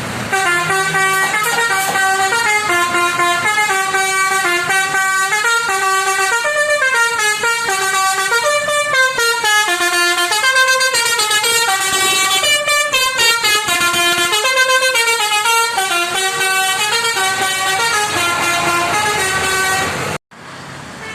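Basuri telolet horn on a bus playing a melody as a continuous run of stepped, held notes. It cuts off abruptly near the end.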